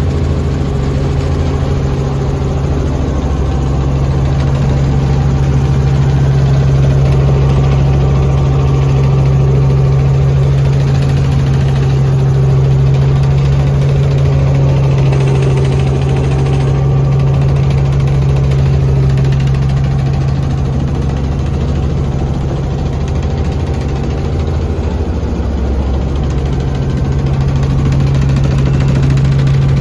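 Helicopter cabin noise: the engine and rotor running with a steady, loud low drone and hum, heard from inside the cabin.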